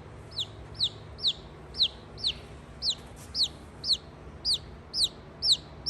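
Baby chick peeping: a steady series of short, high peeps, each sliding down in pitch, about two a second.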